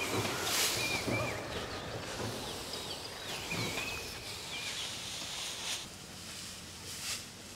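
Dry rice straw rustling and crackling as armfuls of straw bundles are lifted and stacked, with a few brief louder rustles. A bird gives several short whistled calls in the first half.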